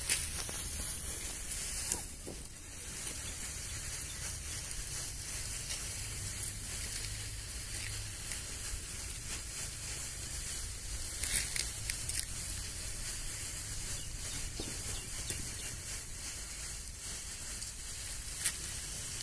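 Large snake tablet firework burning with a steady soft fizzing hiss and a few sharper crackles as it swells into its ash snake.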